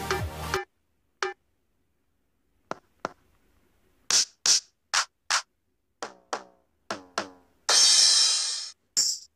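Electronic drum samples from a phone octapad app, tapped one pad at a time after a backing track cuts off about half a second in. A few single hits, then a quicker run of bright hits about twice a second, some with a short falling ring, and a cymbal-like wash lasting about a second near the end.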